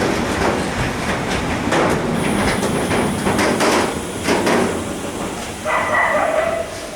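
Container freight wagons rolling past on the rails, their wheels knocking irregularly over rail joints. Near the end a dog whines and yips.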